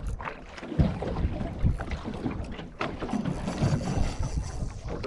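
Water slapping against a small boat's hull on the open ocean, with wind buffeting the microphone and a few irregular knocks.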